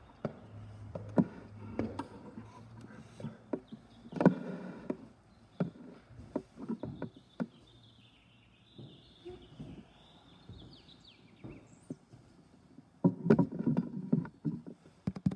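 Footsteps and irregular knocks and clicks as someone walks indoors. The sharpest thump comes about four seconds in and a cluster of knocks near the end. A faint, wavering high squeak runs through the middle.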